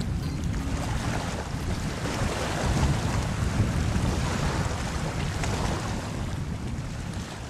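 Steady rushing ambient noise like wind or surf, with no music or tones, fading gradually near the end.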